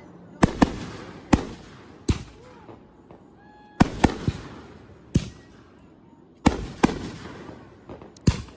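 Fireworks exploding: about ten sharp bangs at uneven intervals, some in quick pairs, each trailing off.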